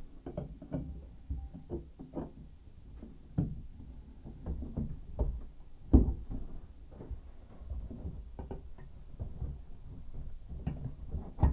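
Irregular knocks, taps and handling noise as a brass shower valve body and its pipes are pushed and worked into line through the hole in a tub/shower surround. The loudest knock comes about six seconds in.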